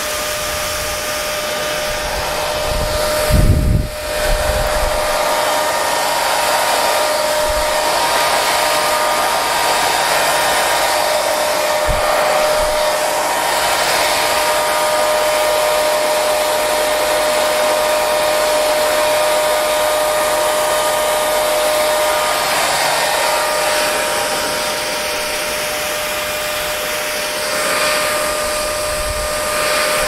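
Parlux 3500 hair dryer running steadily: a rush of blowing air with a steady motor whine. A brief low rumble comes about three and a half seconds in.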